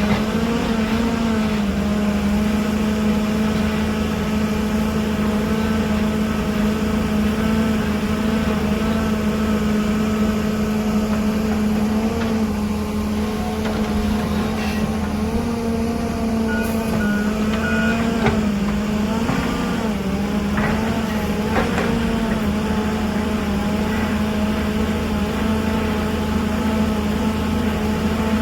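Diesel engine of heavy mining machinery running steadily with slight rises and falls in pitch. A few short high beeps come about halfway through, and some brief knocks follow.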